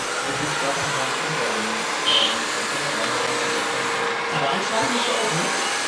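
Steady electric whirring of a radio-controlled timber truck's hydraulic crane pump as the crane swings a log, with indistinct voices of onlookers underneath.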